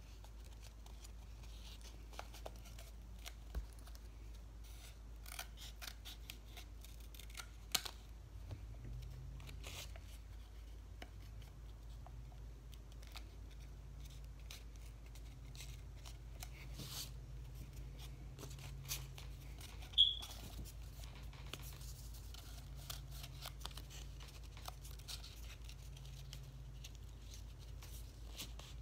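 Paper being handled: scattered light crinkles, clicks and tearing as sheets and strips of construction paper are worked and rolled into a tube, with one sharper click about twenty seconds in.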